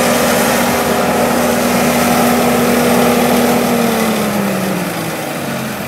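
Ditch Witch JT9 directional drill's engine running steadily under load while pulling the rod string and conduit back. About four seconds in, its pitch starts to drop and the sound eases off as the engine slows.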